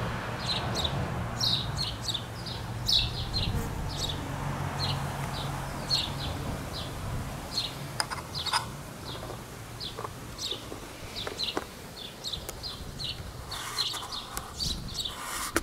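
Small birds chirping over and over in short, high calls, with a low steady hum under the first half. Near the end come rustles and scrapes as fingers handle the camcorder's lens.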